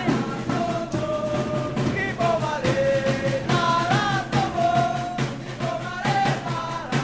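A group of football supporters chanting a song in unison, backed by a steady beat on a marching bass drum.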